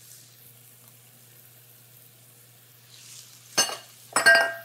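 Ground beef and tomato puree cooking in a nonstick frying pan with a faint, steady sizzle. Near the end there are two sharp clanks with a short metallic ring, about half a second apart.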